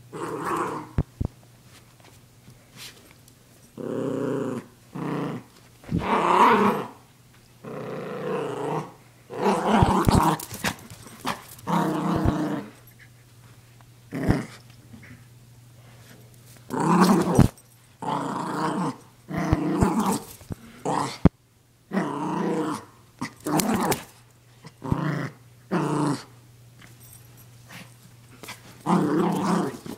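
Maltese puppy play-growling while biting and tugging at a plush toy: many short stop-start growls, each a second or so long, with brief pauses between.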